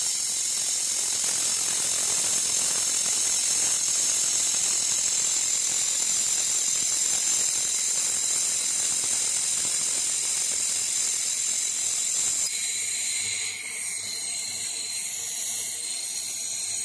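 Handheld laser welding gun working a seam in steel sheet: a steady high hiss. It drops a little and changes about 12 seconds in.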